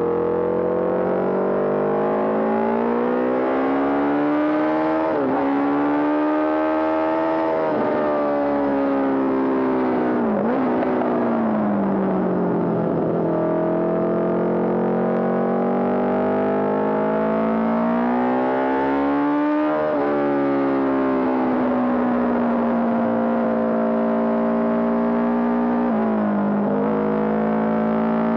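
Honda CB750 racing motorcycle's air-cooled inline-four engine at race pace. The engine speed climbs and falls repeatedly, broken by several quick gear changes where the pitch drops sharply.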